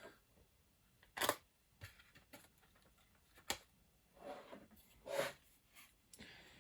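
Faint handling noises: a few separate light clicks, taps and short rustles, with a sharp click about a second in and another a little after three and a half seconds.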